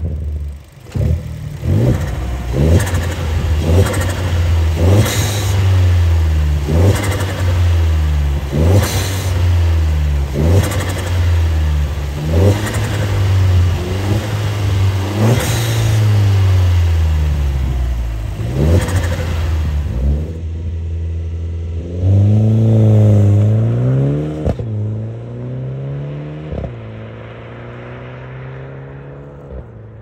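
Alfa Romeo MiTo Quadrifoglio's turbocharged 1.4 MultiAir four-cylinder, fitted with a custom stainless steel exhaust and ram-air intake, idling and free-revved about every two seconds, each rev rising and dropping back to idle. Near the end the car pulls away, its engine note rising and falling and then fading into the distance.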